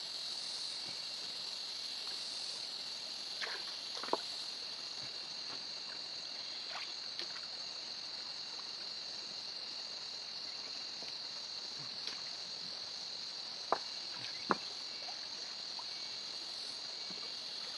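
Steady high-pitched drone of insects, with a few brief small splashes from hands groping in shallow stream water, two of them close together late on.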